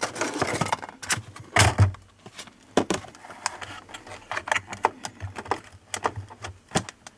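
Clear plastic packaging case of a boxed model locomotive being slid out of its cardboard box and handled: irregular plastic clicks, crackles and scrapes, with a dull knock about a second and a half in.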